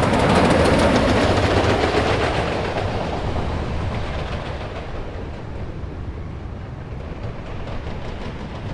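Wooden roller coaster train clattering and rattling over its track, loudest at the start and then fading as it passes by.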